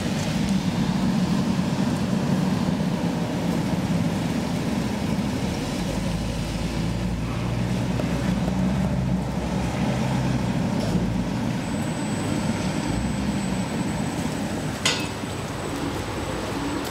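Machine-room-less traction elevator car travelling down its glass shaft, a steady low rumble. A thin high whine joins about two-thirds of the way through, and a sharp click comes near the end as the ride stops.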